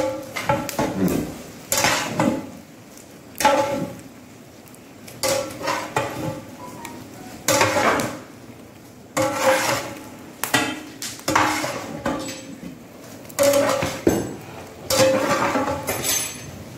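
A long-handled metal ladle scraping and clanking against a large, wide metal cooking vessel as cooked vegetables are tossed with grated coconut for avial, roughly once a second at an uneven pace. The vessel rings briefly after each stroke.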